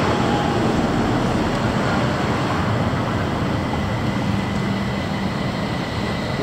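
Fukui Railway low-floor articulated tram running in toward the platform at low speed, its wheels rumbling on the street track. A steady high whine comes in about two seconds in as it slows.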